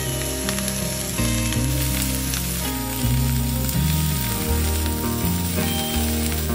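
Vegetables sizzling as they fry in a pan, with diced zucchini dropped in early on, over background music with sustained low bass notes.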